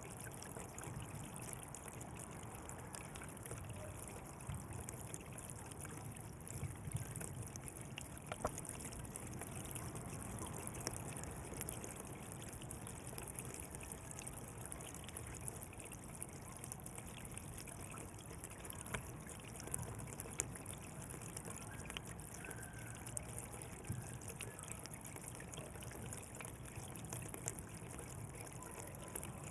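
Water flowing and trickling steadily along a channel, with small splashes and drips scattered through it.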